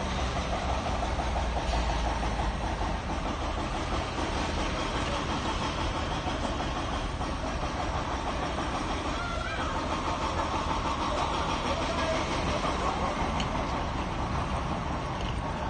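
Steady shop ambience: a low rumble and hiss with faint voices in the background.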